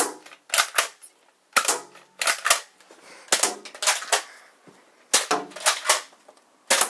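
A powerful nerf-style blaster firing repeatedly at a window: about fifteen sharp cracks, often in quick pairs, in uneven clusters.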